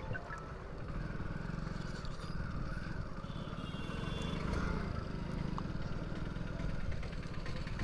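Motorcycle engine running steadily under way, with the rider's own machine's low rumble and road noise filling the sound.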